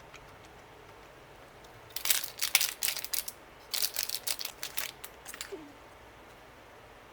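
Plastic food packaging crinkling as it is handled or opened, in two bursts of a second or two each.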